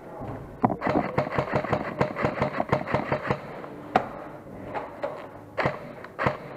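Airsoft electric gun (AEG) firing a rapid full-auto burst of about two and a half seconds, then a few single shots near the end.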